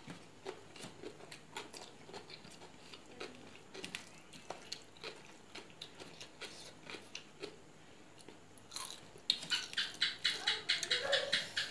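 Close-miked eating: soft chewing and small mouth clicks, then about nine seconds in a short burst of loud, rapid crunching as something crisp is chewed.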